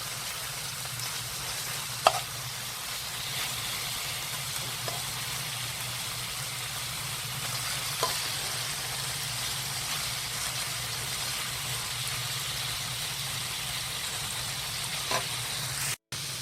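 Duck meat and mushrooms frying in a pan, a steady sizzle, with a few sharp clicks of a utensil against the pan while stirring. The sound cuts out for a moment near the end.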